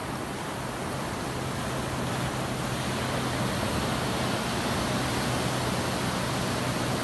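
Ocean surf breaking and washing up a sandy beach, a steady rushing noise, with a steady low hum underneath from about half a second in.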